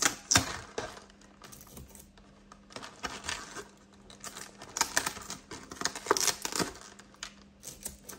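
Hands peeling adhesive tape and seal stickers off a small cardboard box: irregular bursts of scratching, tapping and crinkling of the packaging.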